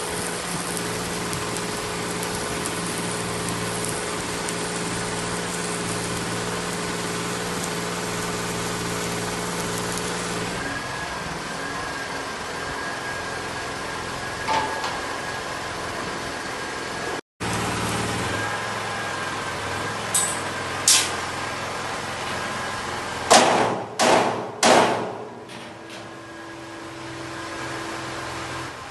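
Workshop sounds from boiler fabrication: a steady machine hum, broken off briefly partway through, then several loud metal knocks with ringing near the end.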